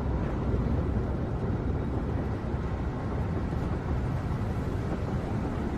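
A steady low rumble of background ambience, with no distinct events.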